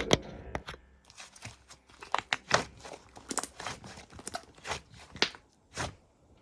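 Slime being pressed and worked by hand, making irregular sharp popping clicks that stop shortly before the end.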